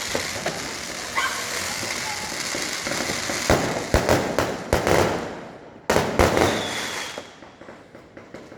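Aerial fireworks bursting overhead: a dense steady crackle, then a run of sharp bangs from about three and a half seconds in, and a loud burst near six seconds whose crackle fades away before another burst at the very end.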